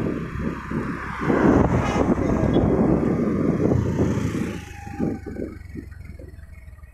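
A motorcycle engine passing close by on the road, loud at first and fading away about five seconds in.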